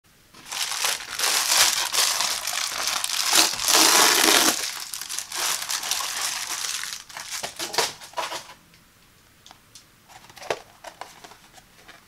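Plastic bubble mailer crinkling and rustling loudly as it is opened and a blister-packed product is slid out. The crinkling dies down about eight seconds in, leaving a few soft clicks and taps as the plastic blister pack is handled.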